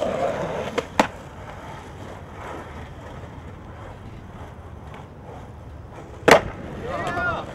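Skateboard on concrete: two sharp clacks of the board about a second in, then the wheels and trucks rolling along a concrete ledge, and a loud slap of the board landing about six seconds in.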